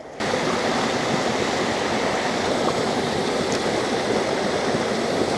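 Small mountain stream rushing over rocks: a steady water noise that cuts in suddenly just after the start.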